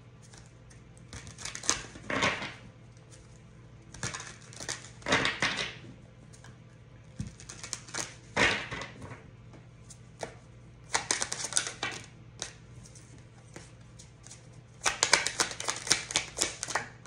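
A deck of cards being shuffled by hand, the cards clicking and flicking against each other in about five bursts of a second or two, with short pauses between.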